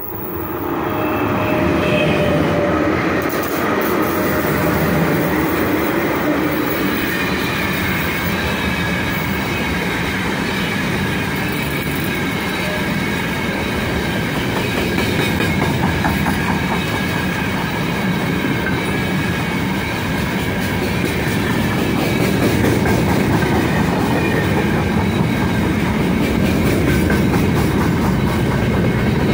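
2ES5K 'Ermak' electric locomotives passing close by with a freight train, then a long run of open freight wagons rolling past, wheels clicking over the rail joints. The noise comes up sharply about a second in and then holds loud and steady.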